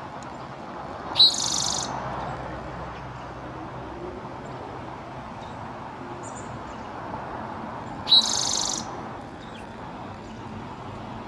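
Spotted Towhee singing: two songs about seven seconds apart, each a sharp opening note run into a fast, buzzy trill lasting under a second.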